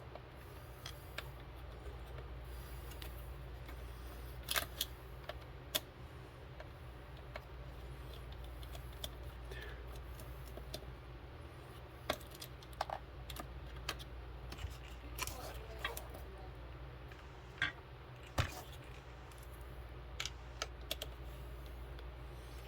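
Small, irregular clicks and ticks of small hard parts and hand tools being handled while an RC crawler's transmission is worked on, over a steady low hum.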